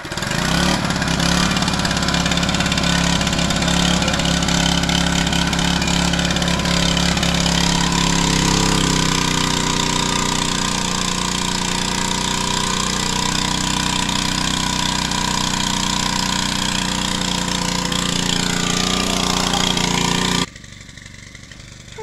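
Small petrol engine of a portable water pump catching on a pull-start and running steadily as it pumps water from a tank. Its note shifts slightly lower about nine seconds in, and the sound cuts off suddenly near the end.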